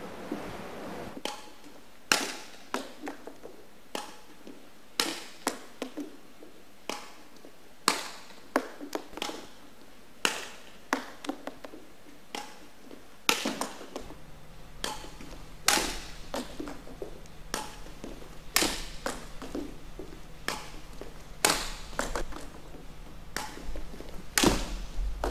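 Badminton racket striking the shuttlecock in forehand net kills: sharp taps at irregular intervals, roughly one a second, some with softer thuds between them.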